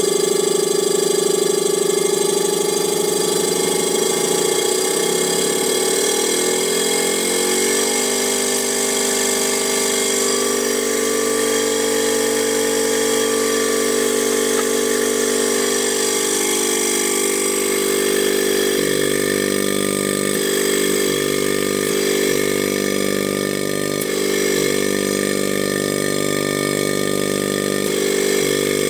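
DWM Copeland refrigeration compressor running on a variable frequency drive: a steady mechanical running sound with a whine. Its pitch shifts about four to eight seconds in and again around two-thirds of the way through.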